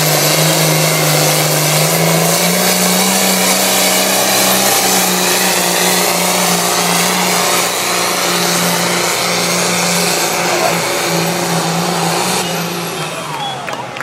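Modified diesel farm pulling tractor running flat out under full load as it drags a weight-transfer sled, with a steady high whistle over the engine. The engine note falls away near the end as the pull finishes.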